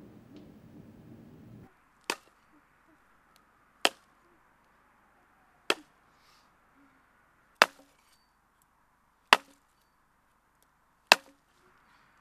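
Axe chopping wood: six sharp single strikes, each about two seconds apart, the later ones louder than the first.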